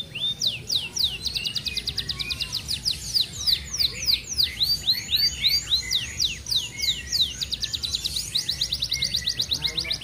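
F1 canary singing a long, fast rolling song: a rapid unbroken string of short descending notes, tightly packed, with the speed of the roll changing from phrase to phrase.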